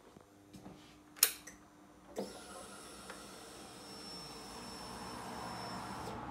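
Ignition switched on on a Triumph Street Triple 675: a sharp click a little over a second in, then a steady electric whine for about four seconds as the fuel pump primes the fuel system.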